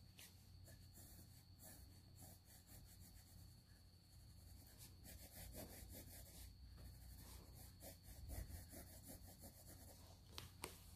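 Faint scratching of a pencil on sketchbook paper, in runs of short strokes as lines are drawn and shaded, with two sharper ticks near the end.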